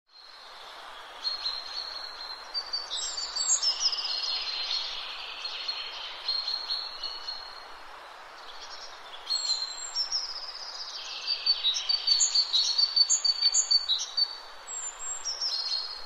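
A songbird sings two long twittering phrases of rapid, high notes, the first starting about a second in and the second about nine seconds in, over a steady background hiss.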